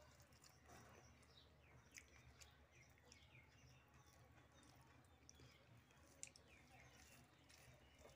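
Near silence: fingers softly mixing rice and curry on a plate, with a few faint clicks, under faint, repeated high chirping.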